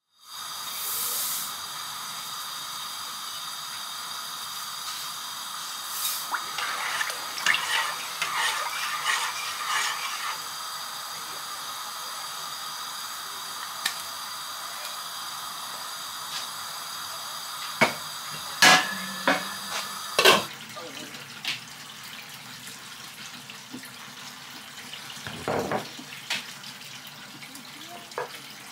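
Water running from a kitchen tap, likely filling a pot to cook gungo peas, with clinks of the pot and utensils now and then. The running stops about twenty seconds in, leaving quieter room sound and an occasional knock.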